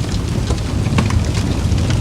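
Campfire burning: a low steady roar of flames with scattered sharp crackles and pops of burning wood, half a dozen or so in two seconds.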